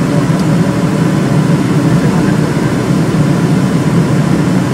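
Steady drone of a moving vehicle, engine and road noise running evenly with no speech over it.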